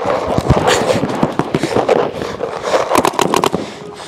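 Paintball markers firing rapid, irregular strings of sharp pops, shots overlapping one another.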